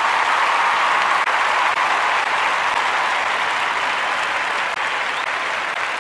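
Audience applauding, a steady patter of many hands that eases off slightly toward the end.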